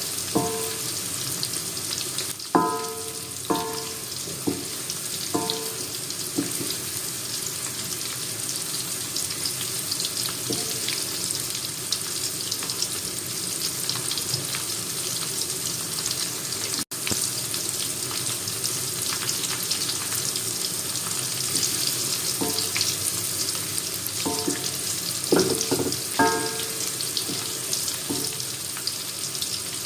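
Tofu frying in hot oil with a steady sizzle. Now and then a metal utensil clinks and rings against the pan, in clusters near the start and again near the end. The sound drops out for an instant about halfway through.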